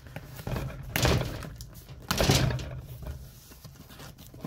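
A box and its packing being handled and opened on a table, with two loud rustling, scraping bursts about one and two seconds in.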